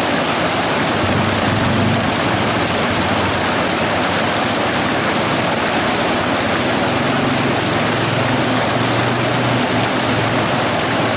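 Shallow river rapids rushing in a loud, steady roar of white water, heard from right at the water's surface.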